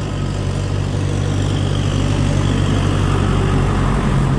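Engine idling steadily, a low even hum growing slightly louder toward the end.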